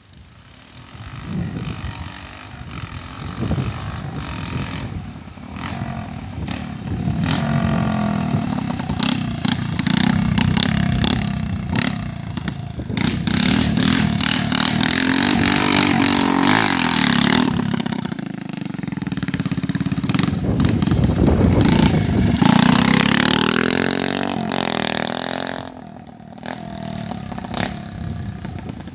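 Agrale engine being revved repeatedly, its pitch climbing and falling in two long spells, with sharp crackling pops throughout. It drops back to a lower idle near the end.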